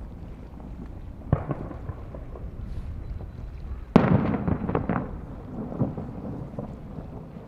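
Fireworks shells bursting: a sharp bang about a second in, then a louder bang about four seconds in followed by a second or so of crackling and rumbling echo, and a few smaller pops after. Wind rumbles on the microphone underneath.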